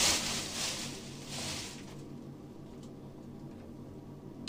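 Clear plastic wrapping film crinkling and rustling as it is pulled off and bundled up by hand, stopping about two seconds in; after that only a few faint handling ticks.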